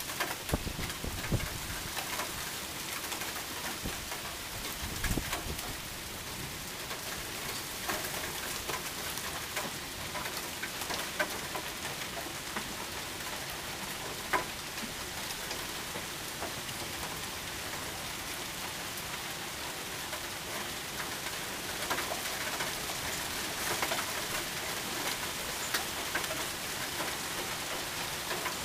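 Heavy rain pouring steadily with quarter-size hail from a supercell's hail core, scattered sharp clicks of hailstones striking. A couple of low rumbles come about a second in and again about five seconds in.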